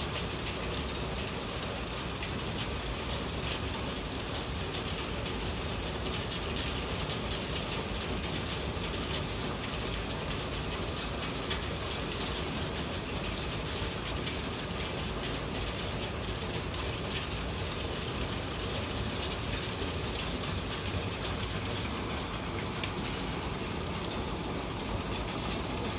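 Steady spring rain falling, a dense, even stream of small drop ticks on hard surfaces.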